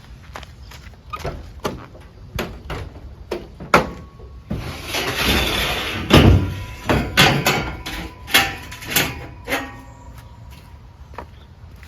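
A series of sharp knocks and clunks, with a longer scraping, rushing noise about four and a half seconds in, followed by more knocks.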